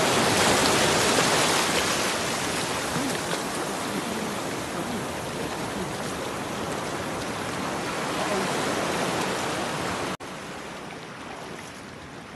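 Surf breaking and washing over a rocky shore, a steady rushing hiss that slowly eases. About ten seconds in it cuts off suddenly to a quieter, thinner rush of water and wind.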